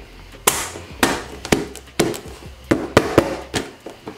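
Hard plastic knocking and tapping from a stackable plastic shoe box and its panels being handled and set down: a string of sharp, separate knocks, about two a second.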